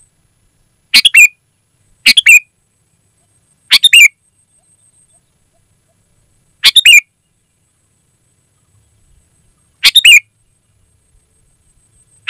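Sooty-headed bulbul (kutilang) calling loudly: five short bursts of quick notes in about twelve seconds, with silent gaps between them.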